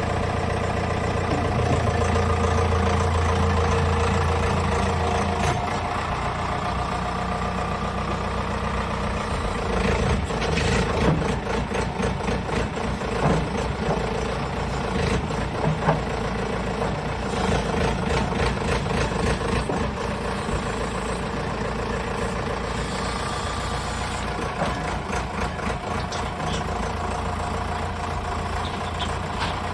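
Diesel engine of an excavator wheel loader running at idle, a little louder for the first few seconds. About a third of the way in comes a run of sharp clanks and knocks lasting several seconds.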